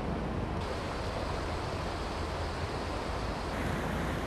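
Steady rushing noise of floodwater, with the wash of the water shifting slightly in tone twice.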